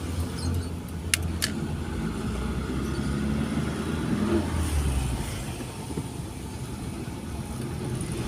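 Car engine running steadily with a low rumble, with two sharp clicks about a second in.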